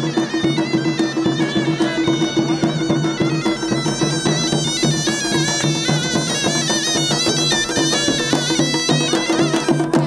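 A traditional North African shawm and drum band playing: reedy zurna-type shawms wail a wavering melody over a steady low drone while a large double-headed drum beats a regular rhythm.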